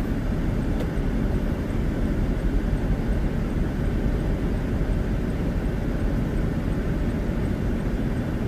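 Steady low rumble of a car's tyres and engine, heard from inside the cabin while driving.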